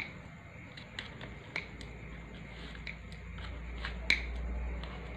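Scissors snipping through a baked pizza's crust: several sharp, crisp snips about a second apart, the loudest about four seconds in.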